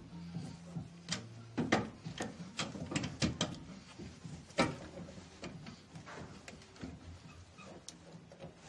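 Metal suspension parts knocking and clicking as a coilover and lower control arm are handled and worked into place by hand: a string of sharp knocks, thickest between about one and five seconds in.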